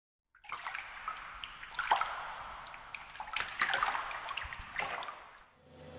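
Water splashing and trickling, with a scatter of drips and a few louder splashes. It starts just after a moment of silence and fades out near the end.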